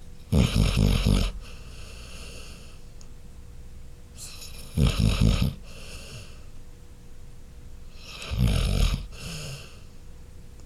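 A sleeping Labrador Retriever snoring: three loud rasping snores about four seconds apart, each followed by a softer breath.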